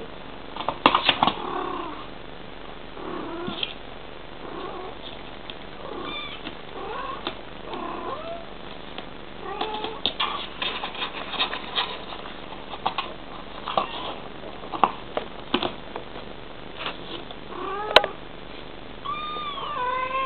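Bengal mother cat and her kittens calling back and forth in short chirping mews, a dozen or more scattered calls with a few longer arching ones near the end. Between the calls, sharp scratching clicks of claws on the cardboard box as a kitten scrabbles over its edge.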